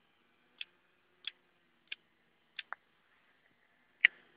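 Hand pruning shears (secateurs) snipping young thuja shoots. There is a run of sharp snips about every two-thirds of a second, then a louder snip near the end.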